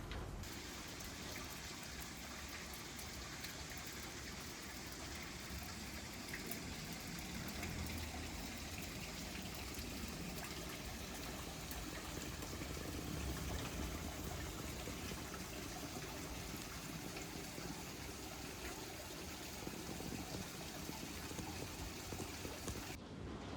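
Steady rain falling: a constant hiss with a fine patter of drops.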